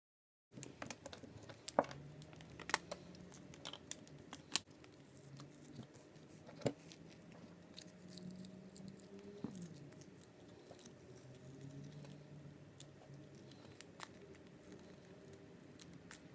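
Handling of a silicone rubber mold: several sharp snaps and clicks in the first seven seconds as the rubber bands are pulled off it, then quieter rubbing and peeling noises as the two mold halves are worked apart to free a resin casting.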